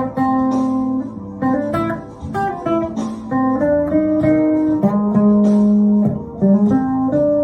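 Electric guitar, a Gibson Les Paul, playing an improvised single-note solo line over the chord changes of a backing track. Quick runs of notes, with a longer held low note about five seconds in.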